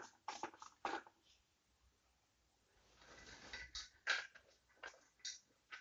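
Faint scattered taps and clicks of green chillies being moved by hand in an empty metal kadai, with a soft rustle about halfway through.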